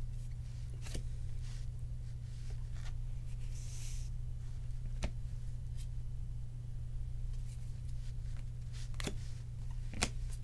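Baseball cards being flipped through by hand: soft scattered flicks and clicks as card edges snap past each other, with a brief sliding rustle, over a steady low hum.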